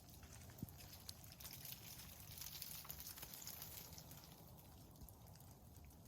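Faint scattered clicks and ticks of ice-coated tree branches, irregular and many, over a soft high hiss and a low rumble.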